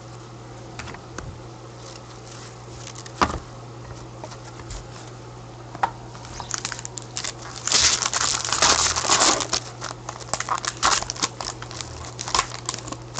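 A 2013-14 Artifacts hockey card pack wrapper crinkling and tearing as gloved hands rip it open, a dense crackle that starts about halfway through and is loudest a couple of seconds later. Before that only a few light taps and clicks of cards being handled.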